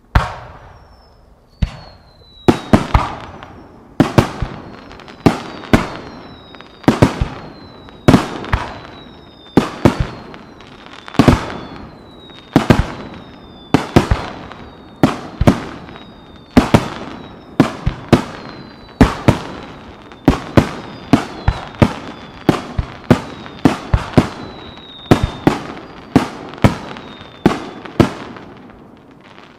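Aerial firework shells bursting in a rapid barrage, about one or two loud bangs a second, each followed by a rolling echo. Thin falling whistles sound between the bangs.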